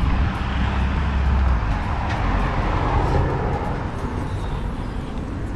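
A car driving past on the street: engine and tyre noise that swells about two to three seconds in and then fades away.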